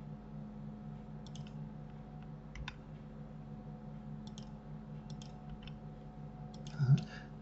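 Scattered computer mouse and keyboard clicks, single or in quick pairs about once a second, over a steady low hum; a short louder sound near the end.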